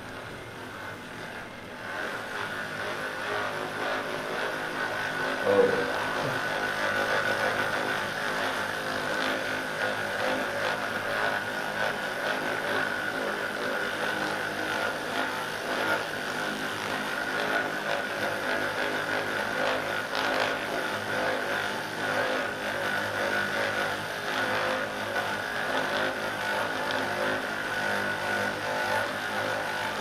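Hypervolt percussion massage gun running against a person's back, a steady electric buzz that gets louder about two seconds in and then holds level.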